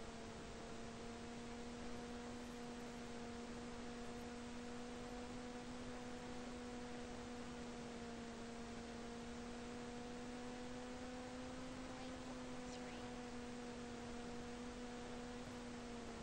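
Electric motor and propeller of a SonicModel Mako flying wing running at steady cruise throttle in flight: a faint, steady hum over hiss.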